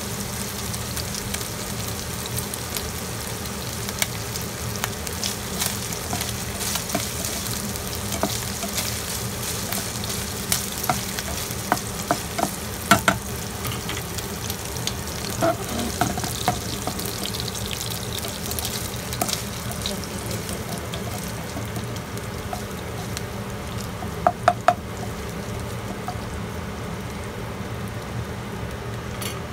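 Minced pork sizzling as it fries in a pan, stirred with a spatula that clicks and scrapes against the pan now and then. Three quick knocks come about 24 seconds in, and the sizzle thins toward the end.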